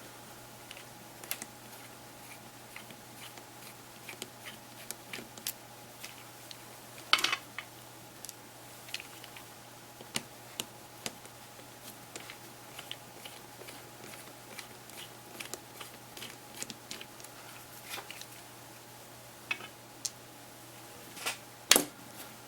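Scattered light clicks and taps of a small plastic device and hand tools being handled, over a faint steady hum.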